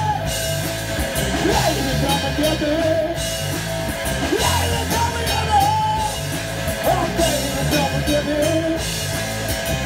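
Live rock band playing loudly on electric guitar, electric bass and drum kit, with a melody line bending up and down in pitch over the top.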